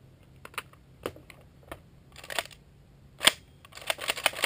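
Footsteps crunching on dry ground: irregular sharp clicks, sparse at first, then louder and closer together from about three seconds in.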